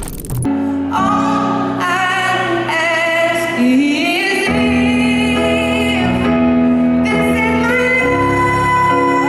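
Music with a woman singing long held notes over instrumental accompaniment.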